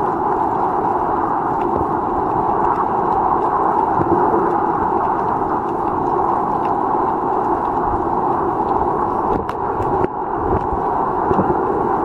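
Steady, muffled rushing of water picked up by an underwater camera in shallow sea water, with a few sharp clicks about nine and a half seconds in.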